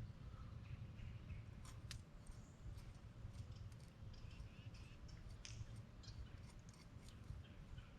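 A knife blade scraping the slime off a fish's skin: faint, irregular scrapes and small clicks, over a low rumble.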